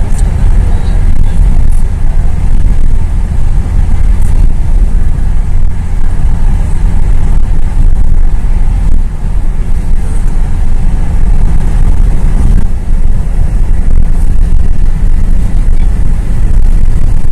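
Steady, loud low rumble of road and engine noise heard from inside a car cruising at highway speed.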